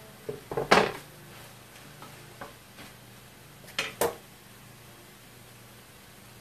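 Cookware clatter: a cluster of sharp knocks about half a second in, a few light clicks, then two sharp knocks about four seconds in as a wooden spoon stirs sliced mushrooms and spinach in a metal pan.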